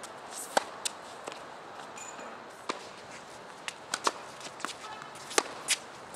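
Tennis rally on a hard court: sharp pops from racket strikes and ball bounces at irregular intervals, with players' footsteps and shoe scuffs.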